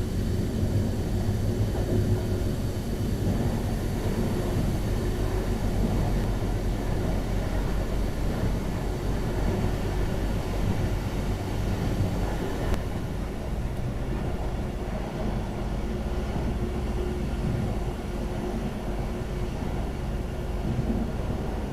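Pesa 218Mc diesel train running, heard from inside the passenger cabin: a steady low drone of engine and wheels on the rails, with no sharp clacks standing out.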